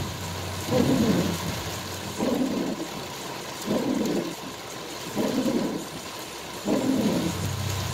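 Windshield wipers sweeping across a rain-covered windshield, about one sweep every second and a half, five in all, heard from inside the car over steady heavy rain on the car.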